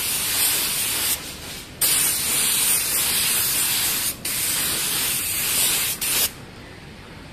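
Gravity-feed spray gun spraying UV primer filler onto a car body panel in a full wet coat: a steady hiss of air and atomised primer. It breaks off briefly where the trigger is released, about a second in and again near four and six seconds, then stops just after six seconds.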